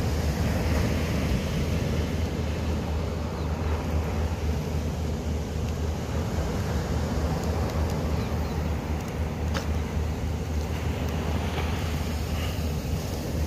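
Wind rumbling steadily on the microphone over the even wash of surf breaking on the beach.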